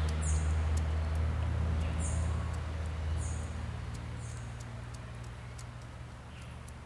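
A low, steady drone that fades away gradually, with short high bird chirps sliding down in pitch about four or five times and a few faint ticks.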